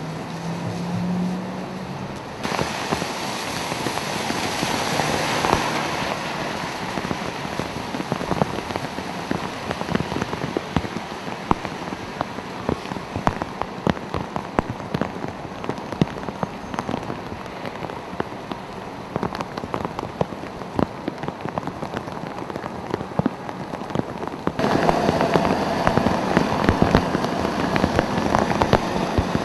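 Heavy rain pouring onto wet pavement, thick with sharp close raindrop hits. The downpour jumps abruptly louder a couple of seconds in and again near the end.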